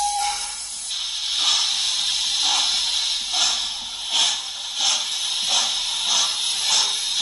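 Model steam locomotive's sound effect as the train pulls away: a whistle note cuts off just after the start. Then comes a steady hiss of steam with regular chuffs, about one and a half a second, slowly quickening.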